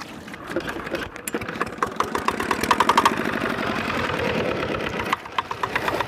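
Small fishing boat's engine running with a fast, even knocking beat, growing louder about two seconds in.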